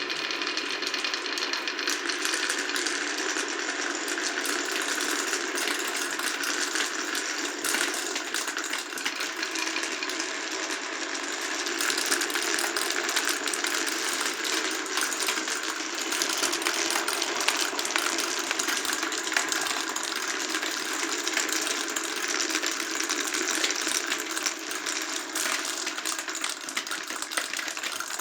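Many glass marbles rolling continuously along a wooden marble run, a steady rattling rumble full of small clicks as they knock against the wooden tracks and each other.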